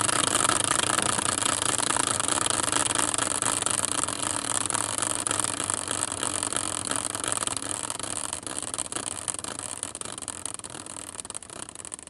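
A caster wheel used as a team-pick spinner, spinning freely on its axle with a steady whirring rattle that slowly fades as it coasts down.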